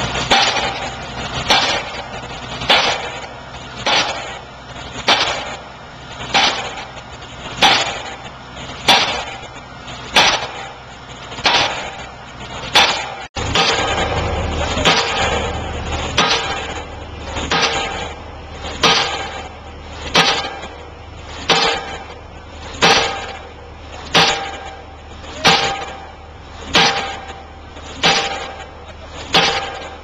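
Diesel pile-driving hammer striking a pile in a steady rhythm, a sharp metallic bang a little less than once a second, each blow ringing briefly. A steady engine rumble runs underneath and is louder in the second half.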